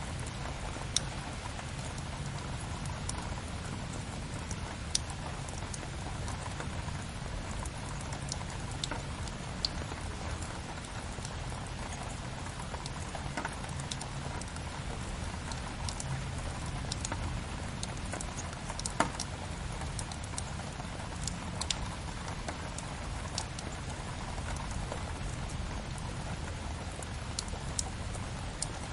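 Steady rain mixed with a crackling wood fire: an even wash of rain with scattered sharp pops, a few of them louder.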